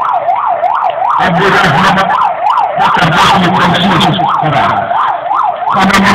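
Electronic vehicle siren on a fast yelp. Its pitch rises and falls about two to three times a second without a break.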